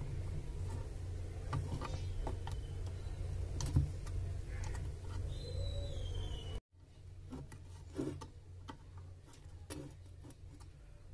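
Faint, scattered clicks and light taps as a 7805 voltage regulator and a soldering iron are handled on a circuit board, over a steady low hum. The sound drops out completely for a moment about two-thirds of the way through.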